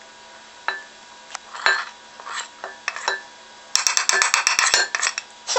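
A metal spoon clinking and scraping against a dish and ingredient containers while dry ingredients are spooned into a bowl: a few separate clinks, then a quick run of rapid clinks about four seconds in.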